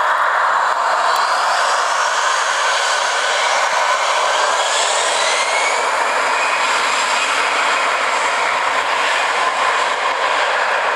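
Airbus A320 jet engines at takeoff power as the airliner rolls past on its takeoff run: a loud, steady jet noise with a whine that slides up in pitch a few seconds in.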